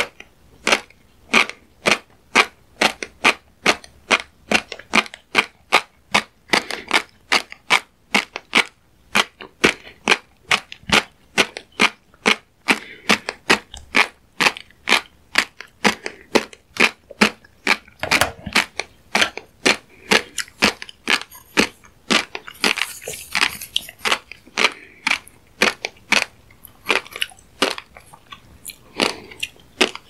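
Close-miked mouth chewing fish roe, the eggs popping in a quick, even run of wet clicks about three a second.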